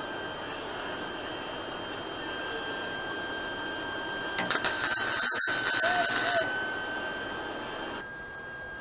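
MIG welding arc crackling and sizzling on the kart's steel tube frame for about two seconds, starting a little before halfway through; a short weld over a steady faint hum.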